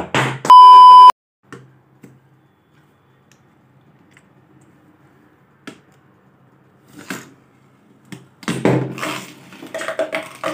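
A very loud electronic beep, about half a second long, sounds half a second in. After it comes the faint steady hum of a homemade all-metal Beyblade spinning in a glass plate. Near the end there is a louder burst of whirring and clashing as a second Beyblade, launched from a string launcher, strikes it.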